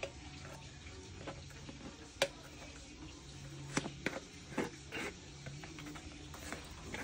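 A metal spoon scraping and clicking inside a plastic jar as peanut butter is scooped out into a metal bowl: a few sharp clicks, the loudest about two seconds in and a cluster near the middle. A low steady hum runs underneath.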